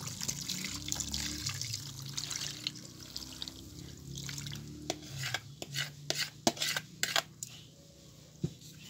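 Liquid garlic marinade poured from a plastic container into a plastic bowl of whole fish, splashing steadily for about five seconds. Then a run of sharp clicks and knocks as metal tongs move among the fish and the bowl.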